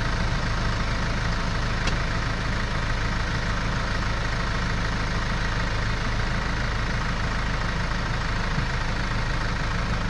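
Case IH 75C tractor's diesel engine idling steadily.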